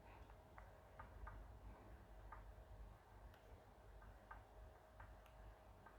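Near silence: faint room tone with a faint steady hum and scattered soft ticks, about one every half second to a second, irregularly spaced.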